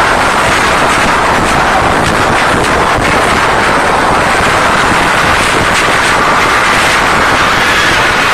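Concert crowd screaming without a break, loud enough to overload and distort a phone's microphone.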